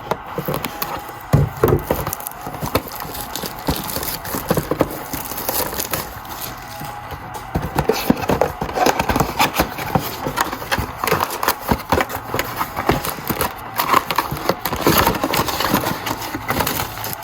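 A trading-card box and its packs being torn open by hand: continuous crinkling and crackling of wrapping and cardboard with many sharp rips.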